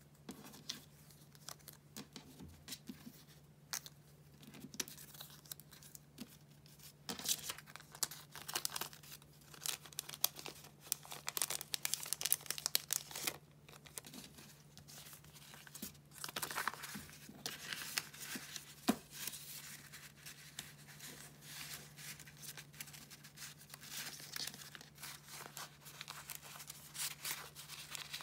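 Close-up crinkling of a clear cellophane sleeve and rustling of paper stickers and cards being handled, in irregular crackly bursts that are busiest from about 7 to 14 s. A faint steady low hum runs underneath.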